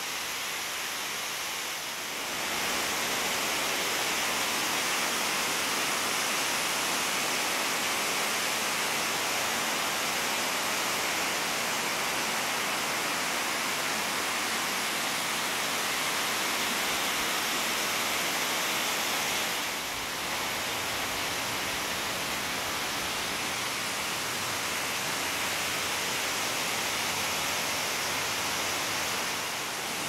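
Small, wide waterfall sheeting down a sloping bedrock ledge in a mountain stream: a steady rush of falling water. It gets louder about two and a half seconds in and dips briefly about two-thirds of the way through.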